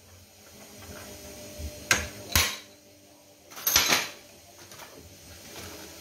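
Hand tools and metal parts knocking and clattering on a workbench: two single sharp knocks about two seconds in, then a short clatter near four seconds.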